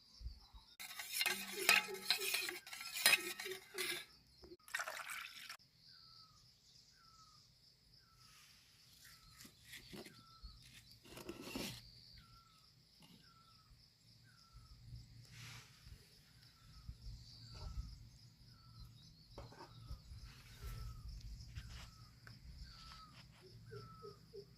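Outdoor ambience: a steady insect trill, with a short falling chirp repeated about once a second. A loud, noisy burst about three seconds long comes near the start, with smaller bursts after it.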